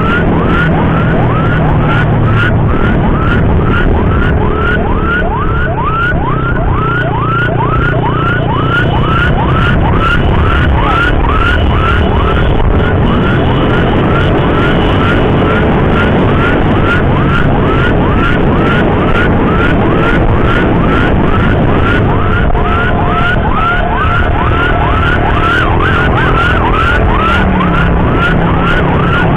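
Electronic emergency siren in a fast yelp, about two to three rising sweeps a second, over the engine and wind noise of a moving motorcycle in traffic.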